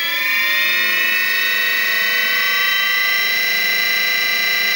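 15 kW brushless electric motor with its Hall sensors connected, driven by a PV 18F controller and spinning with no load: a steady multi-toned whine that rises slightly in pitch during the first second, then holds at about 1700 rpm.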